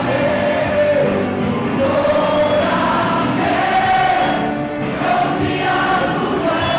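Music of a group of voices singing together like a choir, steady throughout.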